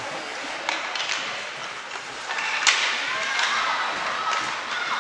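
Ice hockey game sounds: several sharp clacks and thuds of sticks and puck, the loudest near the middle, over steady rink noise, with faint distant shouting in the second half.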